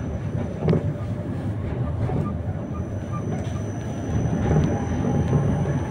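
Tram in motion heard from inside the car: steady rumble of the wheels running on the rails, with a sharp click about a second in.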